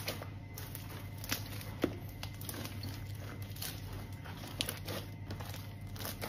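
Hands squishing and kneading sticky glitter slime, with irregular wet pops and crackles as it is pressed and pulled, over a low steady hum.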